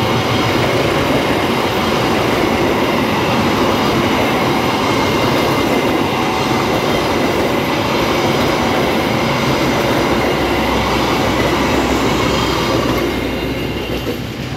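Argo Muria express passenger coaches running past at speed, a steady noise of wheels on the rails that fades as the last coach clears, near the end.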